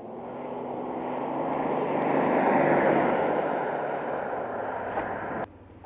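1987 Ford Ranger pickup with its 2.9-litre Cologne V6 driving past, the engine and tyre noise swelling as it approaches, peaking about three seconds in, then fading as it pulls away. The sound cuts off suddenly near the end.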